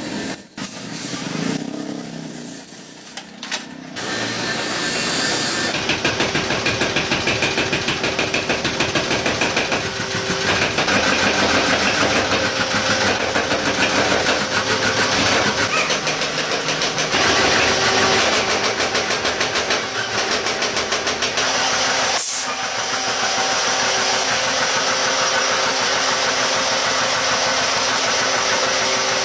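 A workshop machine starts about four seconds in and then runs steadily with a fast, even clatter, with a few short dips along the way.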